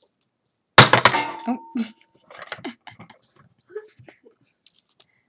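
A hand tool being handled: one sharp clack about a second in that rings briefly, followed by lighter clicks and rattles.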